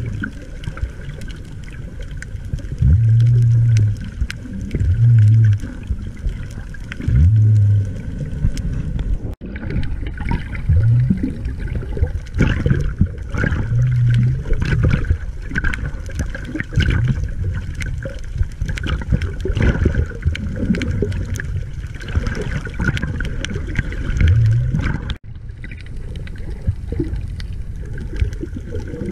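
Muffled underwater noise of water moving around a submerged camera, a low churning rush with crackles and clicks, broken several times by a low hum about a second long. There are two brief drop-outs, about nine seconds in and near the end.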